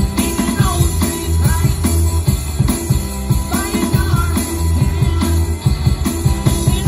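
Live rock band playing: electric guitar, bass guitar and electronic drum kit keeping a steady beat, with a few sliding guitar notes over the top.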